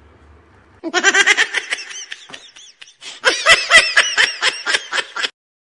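A child laughing in two quick bouts of rapid giggling pulses, the second louder. It cuts off abruptly near the end.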